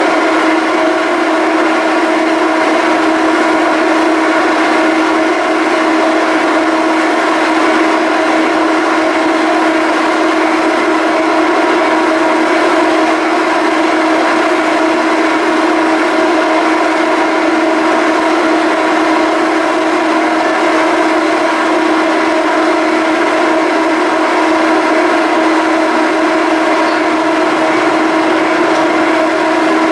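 Salish-class BC Ferries ferry's machinery running with a steady, unchanging hum over a hiss.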